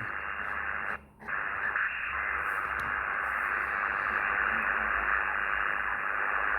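Xiegu X6100 HF transceiver hissing with steady band noise and static from its speaker, dropping out briefly about a second in. The high noise floor is interference from LED lights in the house, as the operator believes.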